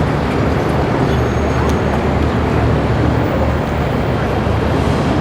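Steady, loud low rumble of passing road traffic.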